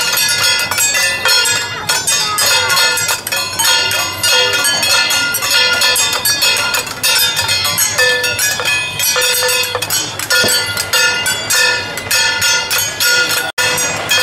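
Temple-procession metal percussion, cymbals and gongs, struck in a fast, steady rhythm of several strikes a second with a sustained metallic ringing.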